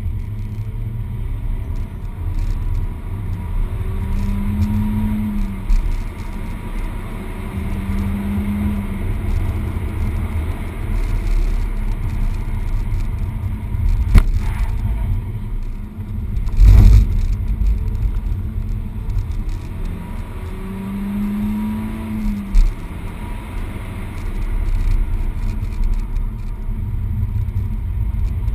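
Peugeot 208 GTi's 1.6-litre turbocharged four-cylinder engine running at track speed, heard from inside the cabin under a heavy low rumble of road and wind noise. The engine note rises and falls a few times, and two sharp thumps come a couple of seconds apart around the middle.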